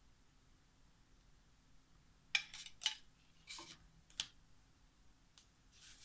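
A plastic stamp ink pad and a carved eraser stamp being handled: four sharp taps and clicks over about two seconds, starting a little after two seconds in. Near the end there is a soft brush of a hand across paper.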